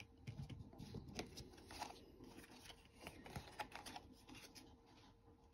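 Faint rustling and light irregular clicks of a deck of tarot cards being handled.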